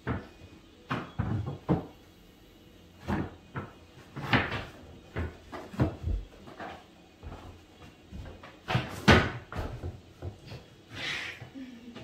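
White wooden trim board knocking and bumping against the tops of the kitchen cabinets as it is pushed up into place: a run of irregular sharp wooden knocks, the loudest about nine seconds in, with a softer scrape near the end.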